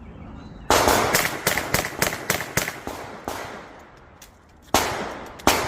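A rapid string of about ten gunshots starting just under a second in, each sharp crack trailing a short echo, then a pause and two more single shots near the end.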